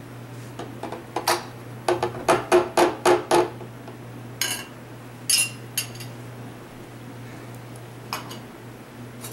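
Kitchenware knocking as eggs go into a blender jar: a click, then about six quick ringing knocks at the same pitch in a second and a half, followed by a few scattered light clicks.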